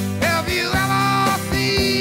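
Background music: a song with a steady drum beat and sliding melodic lines.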